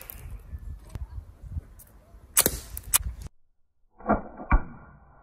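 Wooden slingshot gun being shot: sharp snaps, the loudest about two and a half seconds in with a brief whoosh and another half a second later, then after a short silence two duller knocks.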